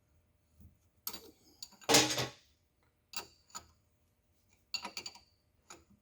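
Metal tools clicking and knocking on metal: about seven separate sharp clicks and knocks, the loudest about two seconds in.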